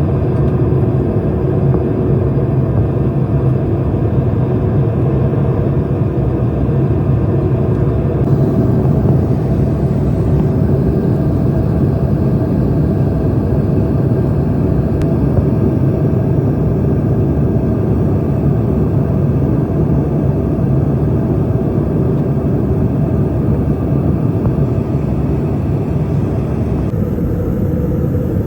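Steady rumble and rush of a jet airliner's cabin in flight: engine and airflow noise heard from inside. Its tone shifts slightly about eight seconds in and again near the end.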